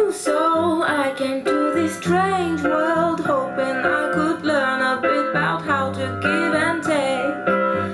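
A song with a lead singing voice over instrumental backing, played through the Kitsound BoomDock iPhone dock speaker at a loud level.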